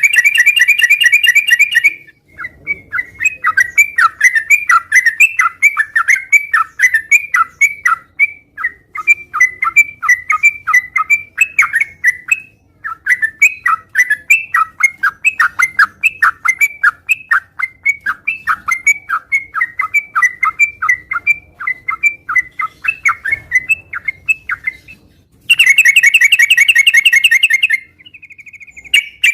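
Yellow-vented bulbul (trucukan) singing in full voice: quick chattering, bubbly notes, several a second, opening with a fast dense trill and breaking into another dense trill near the end.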